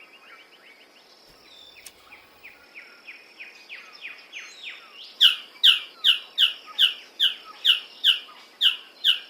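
Male magnificent bird of paradise calling: a long series of short, downward-slurred notes, about two to three a second, faint at first and much louder from about halfway through.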